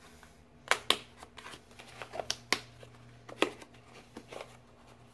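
Small cardboard advent carton being opened and handled by hand: a string of sharp clicks and crinkles from the card flaps and its paper, the loudest pair a little under a second in.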